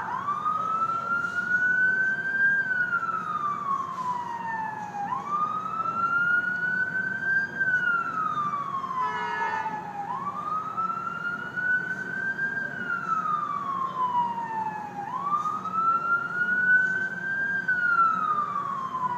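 Ambulance siren in wail mode: a slow tone rising for about two and a half seconds and falling for another two and a half, repeating about four times. It switches from a fast yelp right at the start. Steady engine and road noise runs underneath.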